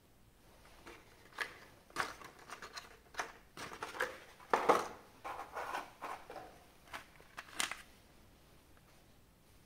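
Unboxing packaging being handled: a run of rustling crinkles and sharp little clicks, loudest about halfway through, ending a couple of seconds before the end.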